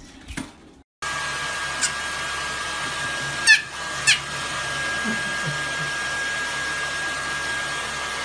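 Hair dryer blowing steadily with a thin whine while drying a small white puppy, which gives two short, high-pitched yips about midway.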